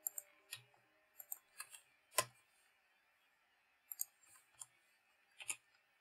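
Faint computer mouse and keyboard clicks, about a dozen, several in quick pairs, against a quiet room.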